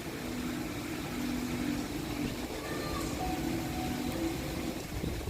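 Strong cyclone wind gusting against the microphone, with a few faint held tones underneath.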